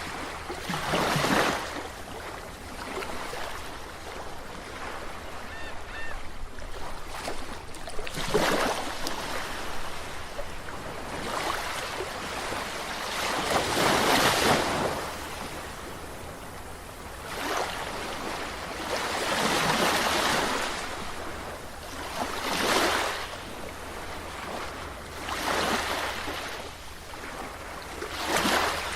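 Sea waves breaking and washing in, one swell of rushing surf every few seconds, about eight in all.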